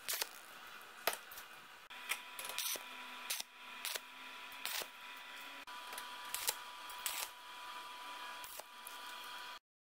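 Electric arc welding on steel square tubing: a steady hiss and buzz of the arc with scattered sharp crackles and pops, stopping abruptly just before the end.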